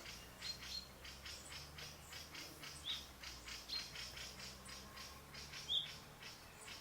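Birds chirping: a few short, high chirps over a fast, even ticking chatter, with a faint low hum underneath.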